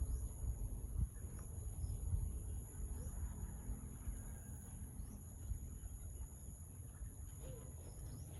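Insects, crickets by their sound, trilling steadily as two continuous high-pitched tones, over a low rumble.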